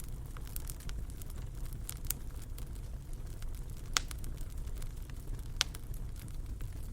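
Fire in a fireplace crackling: a steady low rumble of flames with scattered sharp pops, the loudest about four seconds in and again a little before six seconds.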